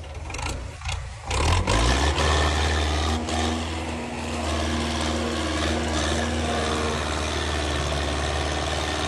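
Belarus 510 tractor's diesel engine starting: it catches with a brief rising note a little over a second in, then settles into a steady idle.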